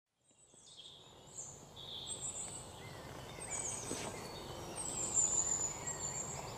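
Birds chirping and twittering over a hiss of outdoor ambience, fading in from silence and growing steadily louder.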